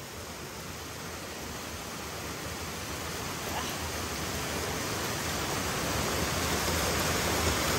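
A steady rushing noise, even from low to high, growing gradually louder.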